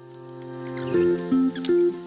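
Instrumental background music fading in, with a melody of short picked notes starting about a second in.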